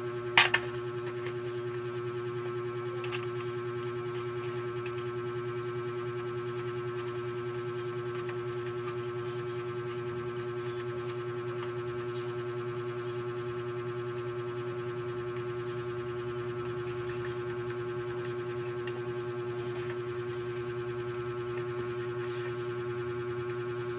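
A steady electronic drone of several held tones, unchanging in pitch and level, with one sharp click about half a second in.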